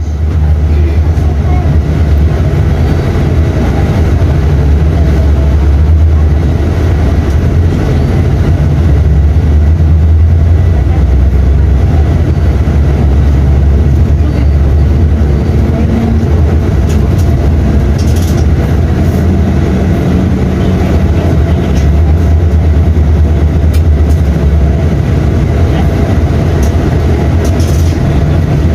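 Mercedes-Benz OM 926 LA six-cylinder inline diesel engine of an O-500U city bus running, a steady deep rumble whose speed shifts slightly now and then.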